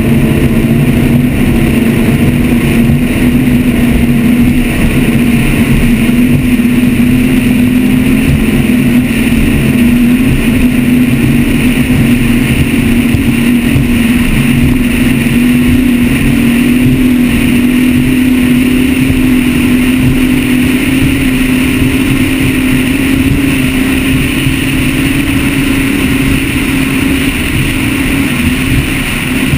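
Mercury engines of a Motion 43GT catamaran running steadily at high cruising speed: a loud, constant engine drone with wind and water rushing past.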